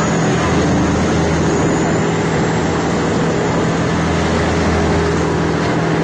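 Loud, steady rush of storm wind and churning river water, with a boat engine droning steadily underneath.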